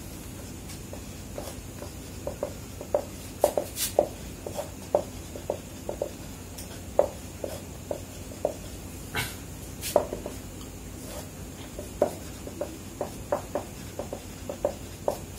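Dry-erase marker writing on a whiteboard: irregular short taps and squeaks of the tip against the board, several a second, over a faint steady hum.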